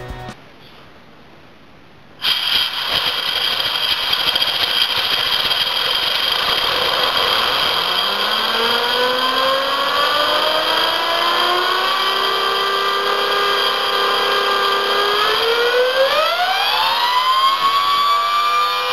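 Compressed air from a blow gun hissing into a 3D-printed PLA model turbine engine, which spins up with a whine of several rising tones. The air comes on abruptly about two seconds in, and near the end the whine climbs steeply as the turbine is driven to full speed.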